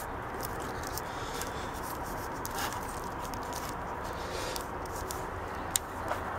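Light handling noises, small scrapes and a few faint clicks, as hands work on the opened drill battery charger's transformer and wiring, over a steady background hiss and hum.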